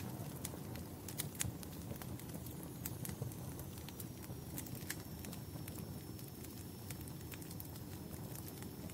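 Wood fire in a fireplace burning with a steady low rumble of flames and frequent sharp, irregular crackles and pops. A faint high thin tone runs through the second half.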